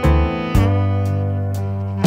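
Background music: sustained instrumental chords over a steady bass line, with a new chord about half a second in.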